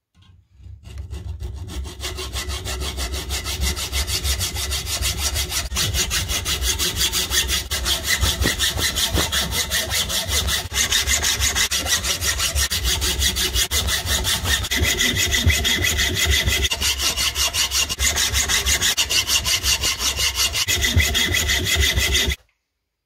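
Hand hacksaw cutting through a steel bar clamped in a bench vise: a steady run of rapid, even rasping strokes that stops abruptly near the end.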